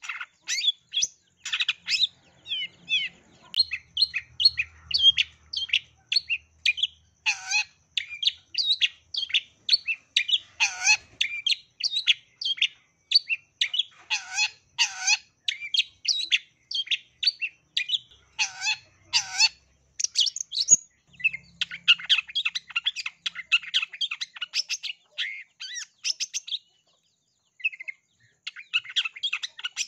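Long-tailed shrike (cendet) singing a fast, unbroken stream of high chirps and mimicked calls, including rapid sparrow-like bursts, with several down-slurred whistles mixed in. It pauses for about a second near the end, then resumes.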